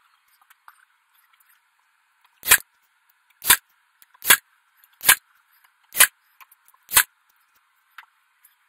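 Ryobi cordless nail gun firing six times, about once a second, driving fasteners into a wooden screen-door frame.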